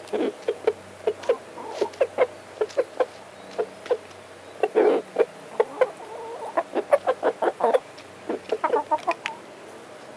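Rooster clucking rapidly, a long run of short sharp clucks a few a second with a couple of louder, longer bursts. The owners take it for a food call telling the hens where the food is.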